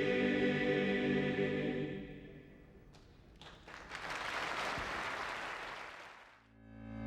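Choral music with held chords that fades out over the first two seconds, followed by a brief silence. Then comes about two seconds of steady noise like applause, and new music swells in near the end.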